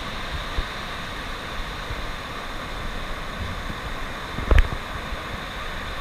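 Wind buffeting the microphone over a steady hiss of surf, with one loud low thump about four and a half seconds in.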